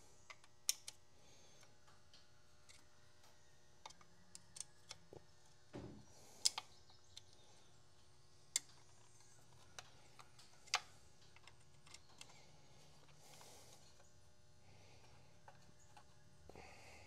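Faint, irregular clicks and taps of hands working at an aftermarket wheel's centre cover, a few sharp ticks standing out among the rest.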